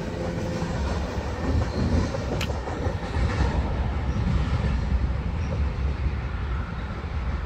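A BNSF freight train of tank cars rolling away down the track, its wheels on the rails making a steady low rumble as the end of the train recedes. There is a brief hiss a little over two seconds in.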